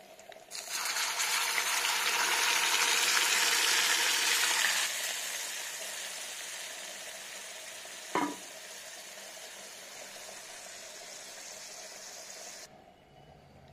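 Hot oil-and-ghee tadka of mustard seeds, garlic and onion sizzling sharply as mashed toor dal is poured into it. The sizzle starts about half a second in, is loudest for the first few seconds, then slowly dies down as the dal covers the hot fat, with a single knock a little past the middle.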